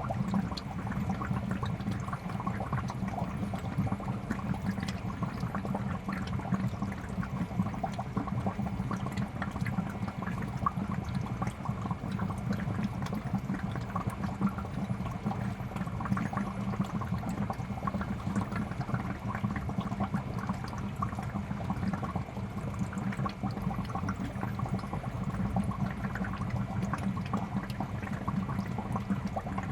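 Aquarium running steadily: constant bubbling and splashing of water from the aerator and filter, over a low, even pump hum.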